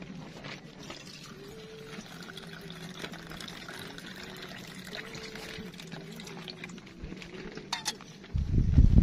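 Water poured from a camping cook pot into an enamel mug, a steady stream filling the mug. A loud low rumble starts near the end.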